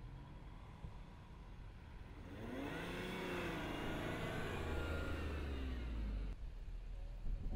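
2013 Range Rover's engine revving as it drives through soft sand, the pitch climbing and then easing back down. It comes in about two seconds in and cuts off abruptly about six seconds in.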